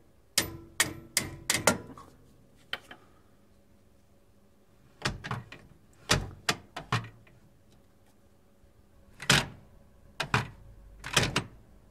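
Hard knocks and clacks from the metal parts of a Brunswick GS-X ball accelerator, irregular and grouped: a quick run of about five early on, another handful a few seconds later and three more near the end. A faint steady hum lies underneath.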